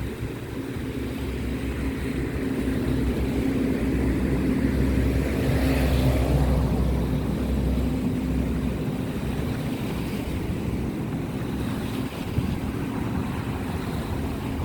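Engine of a large cargo ship passing close by: a steady low drone with a held hum, growing louder to a peak about six seconds in and then easing off a little.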